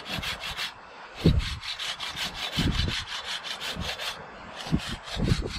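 Hand saw cutting through a branch of a small-leaved hải châu tree in quick, rasping strokes, in runs broken by short pauses about a second in and again near the end. The cut is part of trimming back the crown of the freshly dug tree.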